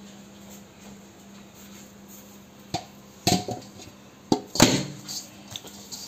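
Stainless steel plate handled on a granite countertop, with a few sharp knocks and clatters starting about three seconds in as a ball of dough is set into it. A faint steady hum runs underneath.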